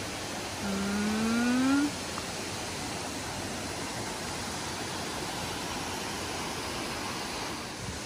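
Steady rushing of a twin waterfall, about 17 m high, and the rocky stream below it. About a second in, a person's voice gives one short rising hum over the water.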